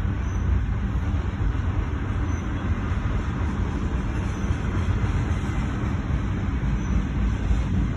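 CSX freight train's intermodal container cars rolling past a grade crossing: a steady low rumble, heard from inside a stopped car.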